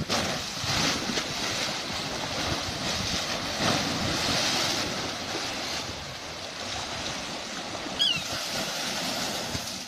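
Muddy Indus floodwater rushing and churning against an eroding earth bank, with a heavier splash a little under four seconds in as a section of the bank collapses into the current. Two short high chirps near the end.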